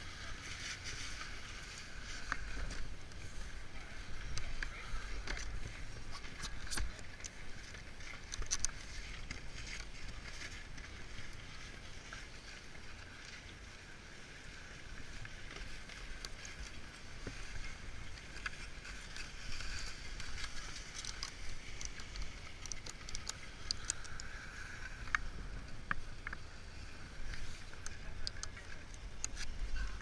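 Snowboard binding straps being fastened, with scattered sharp plastic clicks from the ratchets and buckles and rustling of gloves and jacket, over a steady background hiss and low rumble.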